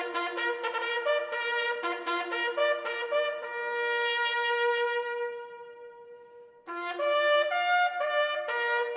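Solo trumpet playing a slow, bugle-style call of a few notes. A long held note fades away about two-thirds of the way through, then the call starts again.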